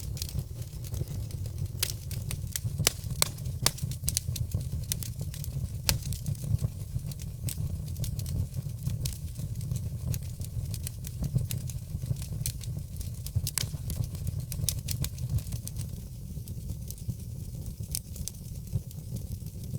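Fire crackling: irregular sharp pops and snaps, several a second, over a steady low rumble of the flames.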